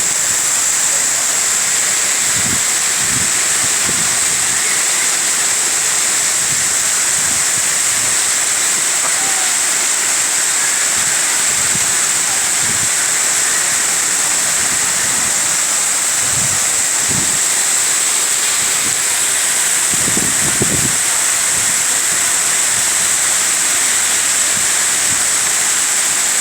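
Heavy rain pouring down in a steady, dense hiss, with a few brief low thumps scattered through it.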